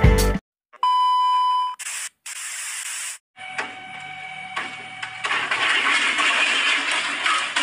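A single electronic beep, about a second long, then a steady hiss with a faint hum that grows louder about halfway through.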